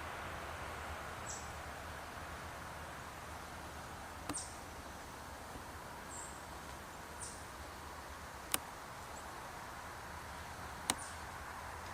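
Short, high chirps from a small bird, about five over the stretch, each falling quickly in pitch, over a steady outdoor hiss. Three sharp clicks: about four seconds in, about eight and a half seconds in, and near the end.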